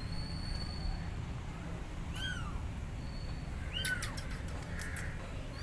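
Kittens mewing: two short high-pitched mews, each rising and falling, about a second and a half apart, over a low steady rumble.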